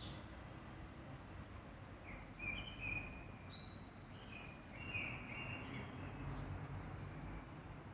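Small birds chirping in many short, quick notes starting about two seconds in, over a low steady rumble of background noise.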